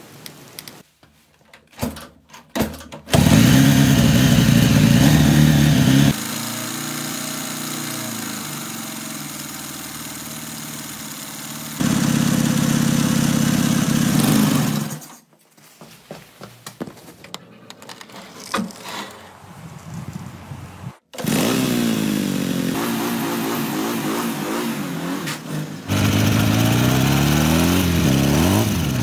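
Restored Soviet motorcycle engine, heard in several abruptly cut segments: a few short clicks first, then the engine running, with its pitch rising and falling in revs in the later part.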